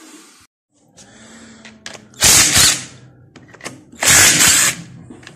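Handheld power driver run in three short bursts of about half a second each, backing out bolts on the engine.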